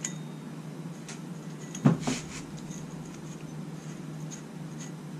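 Faint metallic handling clicks and one sharper knock about two seconds in, as the idler pulley bolt is turned out by hand and the worn pulley is worked off its bracket, over a low steady hum.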